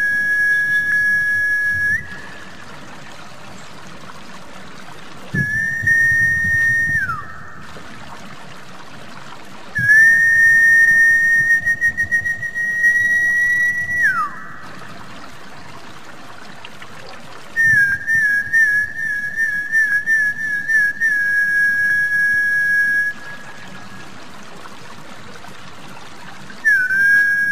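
Snakehead-lure whistle call: long, high whistle notes, each held steady and most sliding down at the end, some with a quick warble. Four such notes sound, a fifth starts near the end, and trickling water runs between them. The call is played to draw snakehead fish up to the surface.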